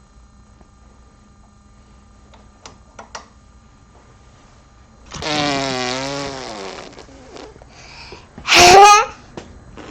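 A man's voice: a drawn-out wavering vocal sound about five seconds in, then a short, very loud yelp that rises sharply in pitch, with faint clicks before it.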